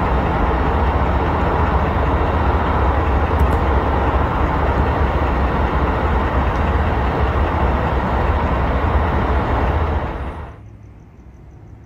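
Steady, loud rumbling noise with no clear pitch, which drops away abruptly about ten seconds in to a faint hiss.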